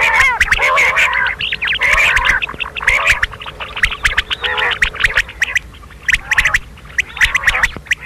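Several common quail calling over one another: a dense chatter of short, quick chirping and clicking notes that thins out about halfway through, then comes back in a brief burst near the end.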